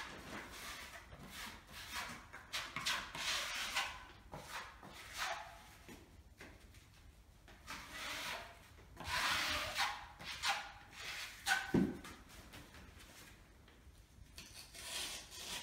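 Metal putty knife scraping and spreading filler over a painted wall panel in irregular strokes. A short knock comes about twelve seconds in.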